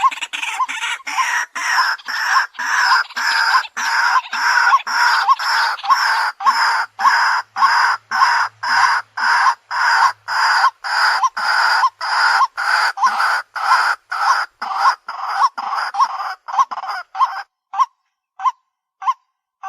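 White-breasted waterhen calling: a loud, steady run of repeated croaking notes, about two to three a second. About three-quarters of the way through the fuller calls stop, leaving short clipped notes about once a second.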